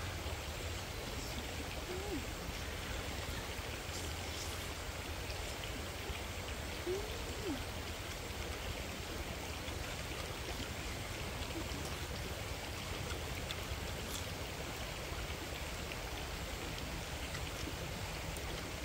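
Steady rushing outdoor background noise with a low rumble, level throughout. Two faint brief pitched glides come through it, one about two seconds in and a slightly louder one about seven seconds in.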